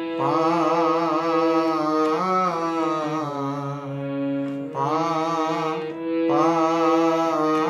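Harmonium playing held notes while a man sings along in long, wavering notes, in three phrases with short breaks between them; the pitch steps down twice in the first phrase.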